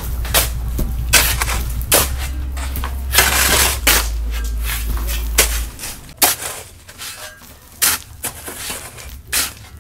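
Shovels digging and scraping through sand in a pickup truck's bed: a string of gritty scrapes and knocks about a second apart, with one longer scrape about three seconds in.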